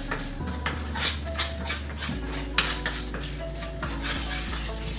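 Steel spoon stirring melting jaggery in a frying pan, scraping and clicking against the pan again and again, with one sharper knock about halfway through.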